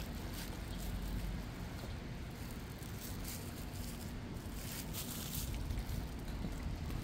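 Street ambience on wet paving: a steady low rumble of traffic, with a few soft scattered scuffs of footsteps.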